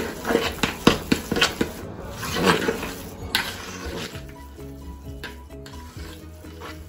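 Fork stirring and scraping a ricotta cheese mixture in a plastic mixing bowl, a quick run of clicks and scrapes. About halfway through, the stirring gives way to background music with a stepped melody.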